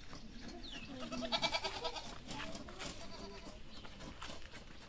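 Goat bleating: one loud, wavering bleat about a second in, with softer calls around it.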